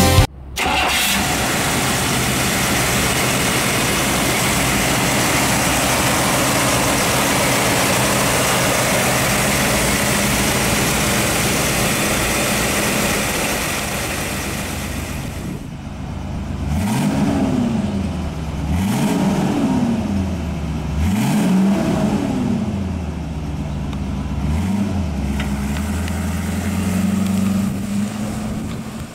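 1960 Chrysler Imperial's 413 V8 running at a steady idle under a loud hiss. About halfway through it is revved three times in quick succession, falling back to idle between, and it rises again near the end as the car pulls away.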